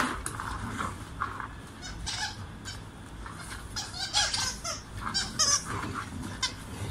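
Squeaky dog toy squeezed again and again, giving short, wavering, honking squeaks, used to excite the dogs.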